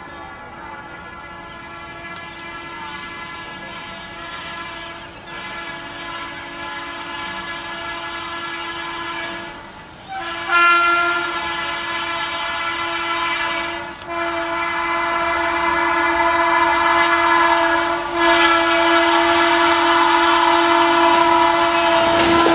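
Twin-tone air horn of a WAP-7 electric locomotive sounding in long blasts with brief breaks as the train approaches at speed, growing steadily louder: a warning to people crossing the tracks.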